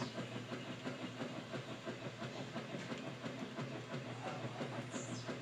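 Whirlpool washing machine running: a steady motor hum under a dense, irregular clatter.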